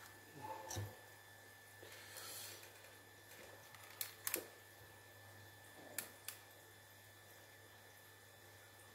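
Faint handling sounds of tools and parts on a workbench: a few light clicks and taps, two close together about four seconds in as a spool of solder is set down, over a steady low hum.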